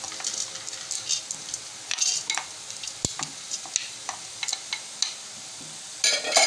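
Dry chana dal (split chickpeas) pattering into an aluminium pressure cooker as a wooden spoon scrapes it out of a glass bowl, giving many scattered small clicks and rattles. A sharp knock comes about three seconds in, and a louder clatter near the end.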